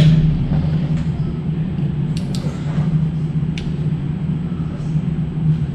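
A steady low mechanical drone, with a few short sharp clicks over it.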